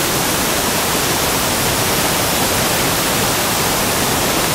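Steady rush of floodwater: a swollen roadside waterfall pouring onto the road and muddy water surging across it.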